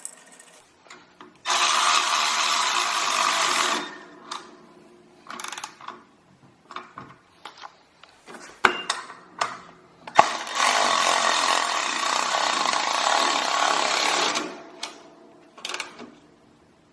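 Power drill driving the Allen bolts into the air bike's frame in two runs, one of about two seconds and a longer one of about four seconds. Clicks and the handling of metal parts come between them.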